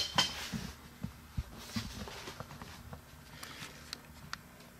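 Soft scattered thumps and light clicks, like footsteps and a handheld camera being moved, over a low steady hum.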